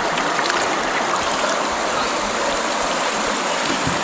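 Stream water running steadily, a continuous rush of water.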